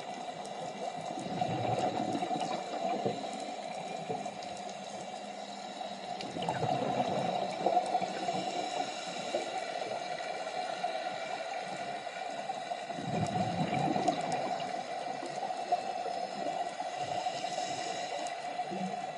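Underwater sound of scuba exhalation bubbles from a diver's regulator, gurgling up past the camera in surges about every six seconds, over a steady underwater hiss.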